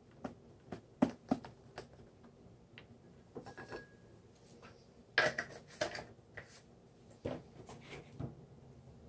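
Light clicks and taps of a plastic measuring spoon against glass jars as dried thyme is shaken out and tipped into a small glass jar, with a louder clatter of handling about five seconds in and a couple of single knocks near the end.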